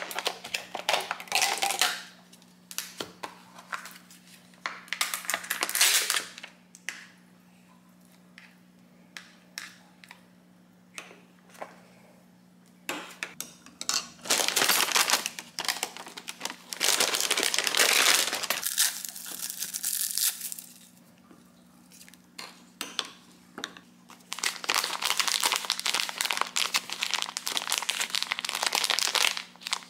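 Plastic food packaging crinkling and rustling in several long stretches, with scattered light clinks of a ceramic spoon against a bowl between them. Near the end the crinkling comes from an instant onigiri's plastic packet being kneaded and pressed by hand. A steady low hum runs underneath.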